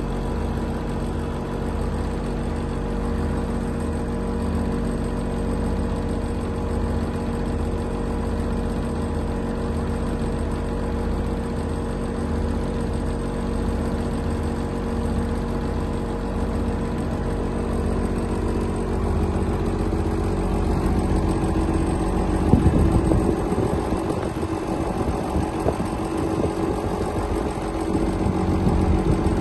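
An engine idling steadily with an even, low pulsing hum. About 22 seconds in it turns louder and rougher.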